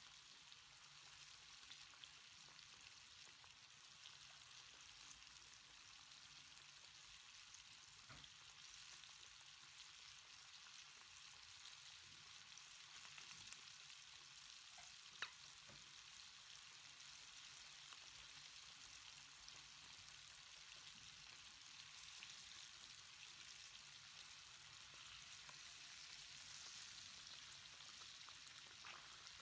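Flour-coated chicken wings frying in hot oil: a faint, steady sizzling hiss with small crackles throughout and a couple of sharper pops about halfway through.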